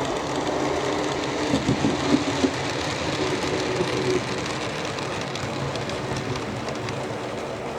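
OO gauge Class 08 model diesel shunter running on the track: a steady electric motor hum with the rattle of wheels on rail and a few clicks.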